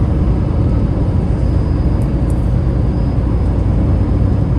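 Waterfall: falling water making a steady, loud rushing noise, heaviest in the low range.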